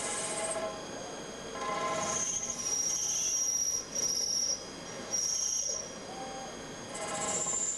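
DMTG CNC lathe machining, with a high-pitched metallic squeal of cutting that comes and goes in several passes of half a second to a second and a half.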